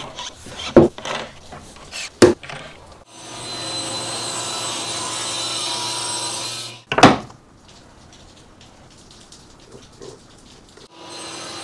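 Table saw setup noises: the fence's stop block clacking as it is set, and a walnut board knocking and sliding on the saw's cast-iron top. Several sharp knocks in the first few seconds, a few seconds of steady rushing, and one loud knock about seven seconds in.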